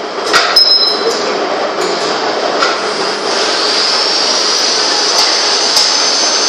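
MJ-4003 clear margin saw machine running, its 5.5 kW spindle motor and saw blade giving a loud steady mechanical noise with a high whine that rises slightly about halfway through. A few sharp clicks come as the adjusting handle is worked.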